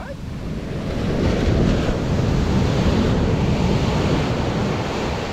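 Sea surf washing in on the beach, with wind buffeting the microphone. The rush swells louder about a second in and eases off near the end.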